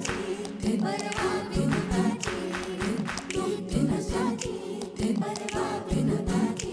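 A group of children's voices singing a song together with backing singers, over instrumental accompaniment with a steady percussion beat.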